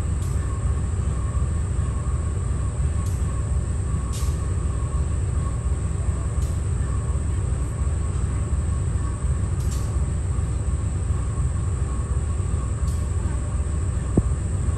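Train running, a steady low rumble with a faint steady whine and a few sharp clicks.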